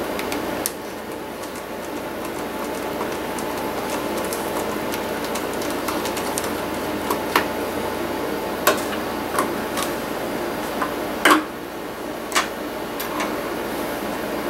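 Scattered small clicks and taps of hands handling a laptop's LCD panel and its metal mounting bracket, the loudest about two thirds of the way in, over a steady background hum.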